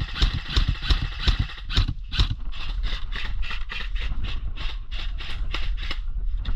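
Footsteps moving briskly through forest undergrowth, about three a second, each a low thud with a rustle of leaves and brush.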